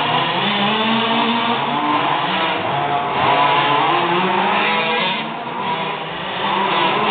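Several large-scale radio-controlled cars' two-stroke engines running and revving, their pitch rising and falling as the cars accelerate and back off around the track.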